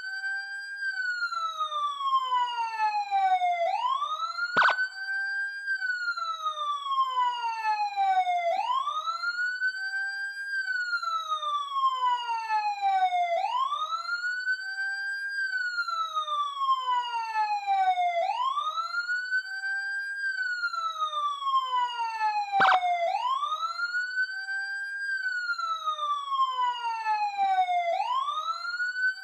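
Police siren in wail mode: the pitch sweeps up quickly, holds for a moment, then slides slowly back down, repeating about every five seconds. Two brief clicks cut across it, one about a fifth of the way in and one about three-quarters of the way in.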